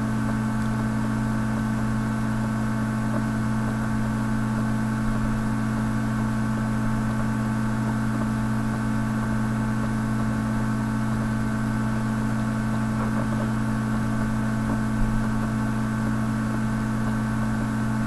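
A steady electrical hum with a stack of overtones and a faint hiss, unchanging throughout.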